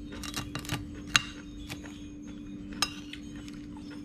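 Metal spoon clinking against a ceramic plate while scooping noodles in gravy: a few light clinks in the first second, a sharp one a little after a second in, and another near three seconds. A steady hum runs underneath.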